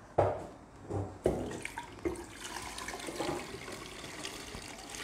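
Juice poured from a glass bowl into a glass pitcher: a few splashes in the first two seconds, then a steady pouring stream filling the pitcher.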